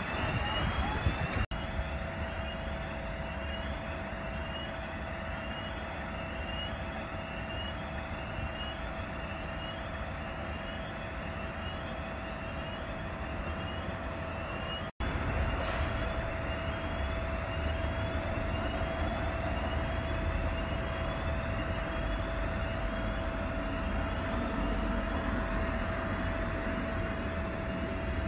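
Parked fire engines' engines running steadily, with a steady high hum and a short rising electronic chirp repeating about once a second above it. The sound cuts out for an instant about halfway through.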